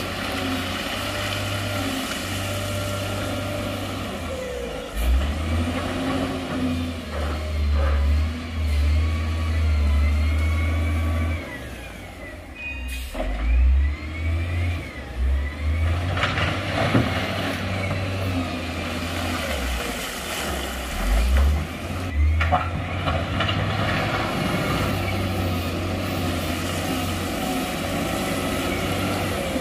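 Heavy diesel earthmoving machinery working, its engine running and revving under load. The deep rumble swells and falls, dips briefly about midway, and a few sharp knocks come in the second half.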